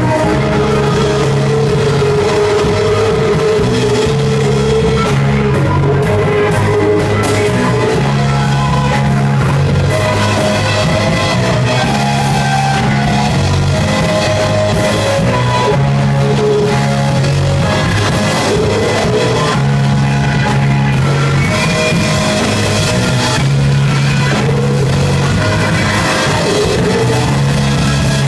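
A rock band playing live and loud, with a bass line that repeats about every four seconds under held guitar tones and drums.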